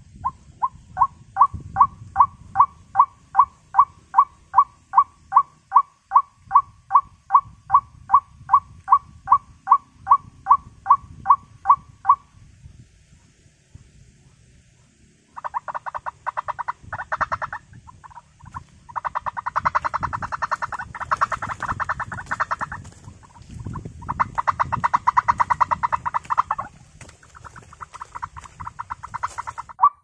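White-breasted waterhen calls. For the first twelve seconds there is a steady run of short calls, about three a second. After a short pause come several bouts of fast, dense chattering calls.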